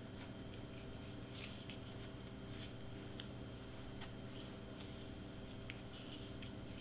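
Faint rustling and small ticks of a ribbon being twisted by hand around a wooden dowel, over a steady low hum.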